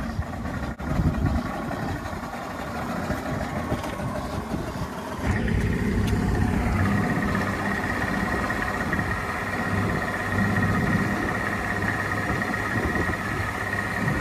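2004 Yamaha 200 hp HPDI outboard running at low speed, pushing the skiff. About seven seconds in, a steady high-pitched tone starts over the engine and holds: the overheat warning of a motor whose water pump impeller has failed and is no longer pumping cooling water.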